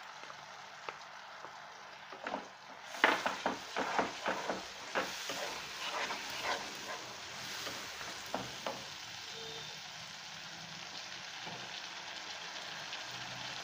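Wet spice masala of coconut and tamarind chutney sizzling steadily in hot oil in a non-stick pan. A wooden spatula scrapes and stirs through it in quick strokes from about three seconds in, easing off after about nine seconds.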